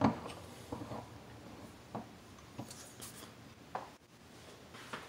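Steel sleeve knocking and clinking against the shaft of a Volvo AWD angle gear as it is worked onto the shaft by hand: one sharp metallic knock at the start, then scattered lighter clicks and taps.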